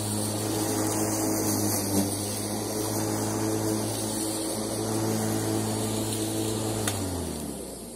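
Bosch ARM 34 corded electric rotary lawn mower running steadily with its freshly replaced motor bearing, a smooth, even hum. About seven seconds in there is a click, and the motor winds down, its pitch falling as it spins to a stop.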